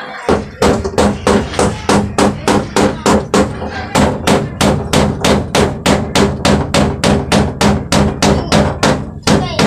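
Rapid, steady hammering, about three to four blows a second, each with a short ring: nails being driven to fix a plywood sheet to the wall.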